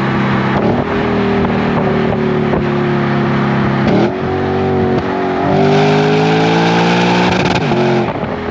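Lexus GS-F's V8 engine heard through a Revel Medallion (Tanabe) exhaust while driving. It runs steadily, with the pitch stepping at gear changes about one and four seconds in. From about halfway it revs up under acceleration, then drops sharply at an upshift near the end.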